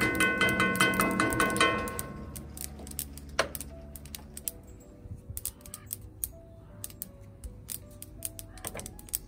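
Sesame seeds popping and crackling as they toast in oil in a hot pan: many sharp irregular clicks. Background music plays over it, loudest as a repeating phrase in the first two seconds, then softer.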